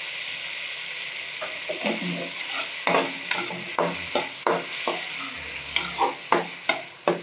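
Curdled-milk solids sizzling in hot oil in a metal karahi. A perforated steel spoon stirs and scrapes them against the pan, with sharp clicks a couple of times a second from about a second and a half in.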